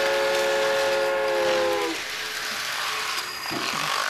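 A train horn holds a steady chord of several notes and cuts off about two seconds in, followed by a softer rattling clatter.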